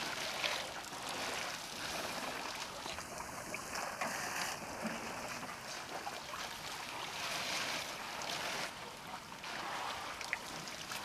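Water splashing and sloshing as a herd of elephants drinks at a waterhole, their trunks stirring the surface; a steady hiss with a few faint ticks.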